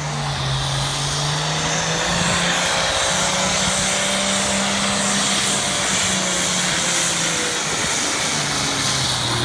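Farm tractor engine running, its pitch rising about three seconds in and dropping back near the end.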